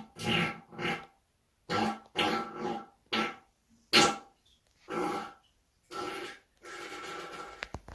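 A person passing gas repeatedly: a string of about nine short, pitched farts with brief gaps between them. The last one, near the end, is longer and quieter.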